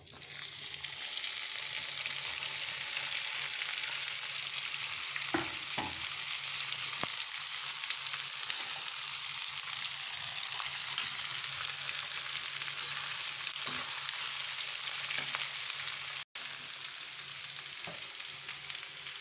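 Chopped onions sizzling loudly as they go into hot oil with cumin in a kadhai, with a few sharp clinks of a spoon against the pan as they are stirred. Near the end there is a brief break, after which the sizzling carries on a little quieter.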